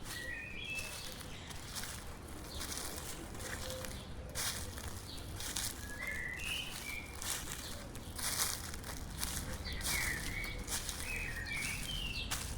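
Footsteps crunching through dry fallen leaves on a forest path, about one or two steps a second. A songbird gives short chirping notes near the start, again around the middle, and in a quicker run near the end.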